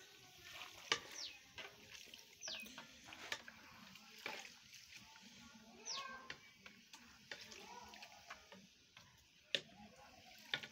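Boondi frying in hot oil in an iron kadhai: faint, steady sizzling, with a few sharp clicks. A bird's short falling whistle sounds a few times.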